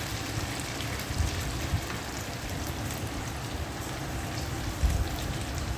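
Corn pakoras deep-frying in hot oil: a steady sizzling hiss, with a few soft low knocks.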